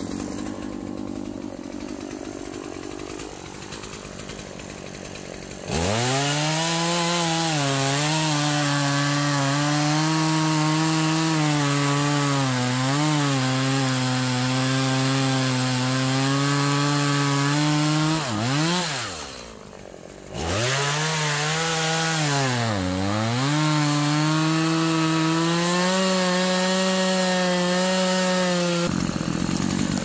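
Stihl MS 180 two-stroke chainsaw idling, then opened to full throttle about six seconds in and cutting through a fallen tree trunk, its pitch sagging under load. It drops back briefly about two-thirds of the way through, revs up again to keep cutting, and falls back to idle near the end as the cut finishes.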